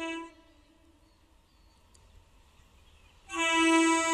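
MEMU electric local train sounding its horn as it approaches: a steady, single-pitched blast cuts off just after the start, and a second, louder blast begins about three seconds later.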